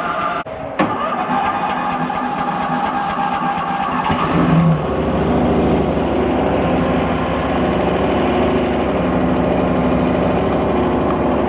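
Mini skid steer's 23 hp gasoline engine being started from cold: it turns over for about four seconds, catches, briefly picks up speed, then settles into steady running.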